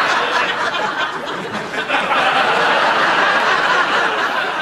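Studio audience laughing, easing off briefly about two seconds in and then building again.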